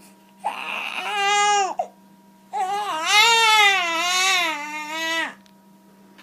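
Baby crying in two cries: a short cry about half a second in, then a longer, wavering cry that stops about a second before the end.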